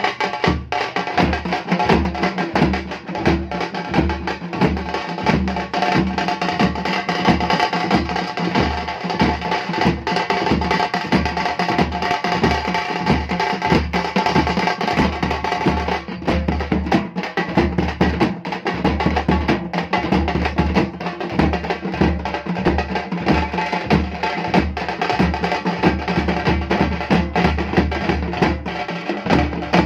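Chennai drum troupe playing a fast kuthu rhythm: heavy low strokes on a steady beat with rapid sharp strokes clattering over them.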